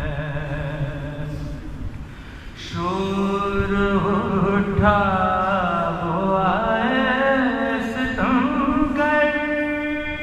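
A man singing a noha, an Urdu mourning lament, solo, in long held notes that waver and bend in pitch, with a short break for breath about two and a half seconds in.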